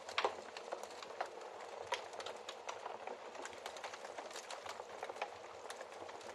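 Wood fire in a fireplace crackling, with frequent irregular small pops and snaps over a soft steady hiss, and one sharper pop right at the start.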